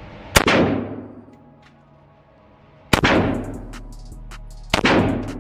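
Three single shots from an 11.5-inch BCM AR-15 pistol, spaced about two seconds apart, each followed by a long echo off the walls of an indoor range.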